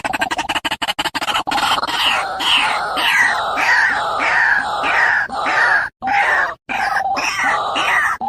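Harsh animal calls repeated about twice a second, broken by two short cuts to silence a little past the middle.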